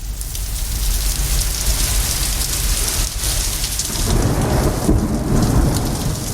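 Steady heavy rain with a low rolling thunder rumble underneath, the rumble swelling about four seconds in.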